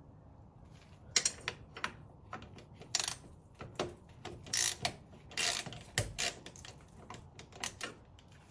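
Socket ratchet on a long extension clicking in short, irregular bursts, starting about a second in, as the 10 mm bolts of an automatic gearbox oil pan are worked loose.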